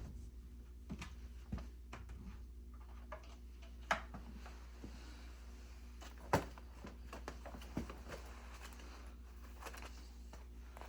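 Scattered clicks and knocks from handling a chainsaw being readied for refuelling, about half a dozen separate sharp sounds spread over several seconds, with a low steady hum underneath.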